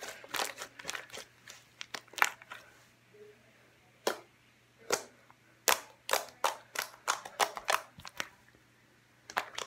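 Hands kneading and pressing white slime, giving irregular sharp wet pops and clicks with short pauses about three seconds in and near the end.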